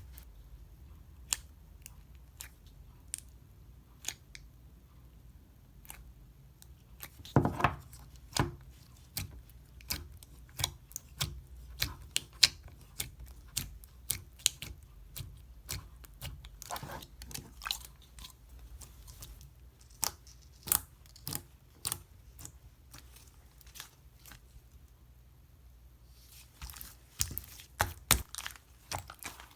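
Slime being squeezed and stretched by hand, giving off sharp pops and crackles: sparse at first, then coming thick and fast from about seven seconds in, easing briefly before picking up again near the end.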